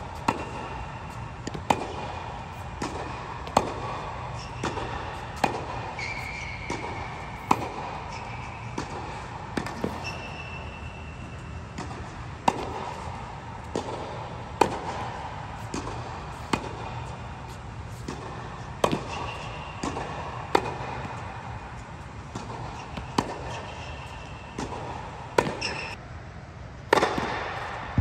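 Tennis ball being struck with a racket and bouncing on an indoor hard court during a rally: sharp pops every one to two seconds, the loudest near the end, over a steady low hum.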